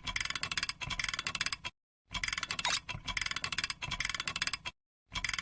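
A looped sound effect of rapid, fast clicking, repeating in identical stretches of about two and a half seconds with short dead-silent gaps between them, about two seconds in and again near the end.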